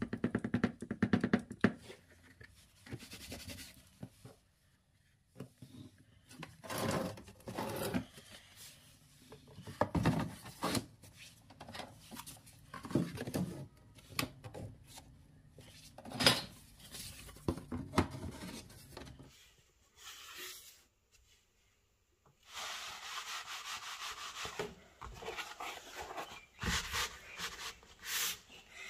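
Hands rubbing and scraping on a laminate floor, in short bouts of a second or two with a few sharp knocks. After a pause of about three seconds, a longer, steadier stretch of rubbing.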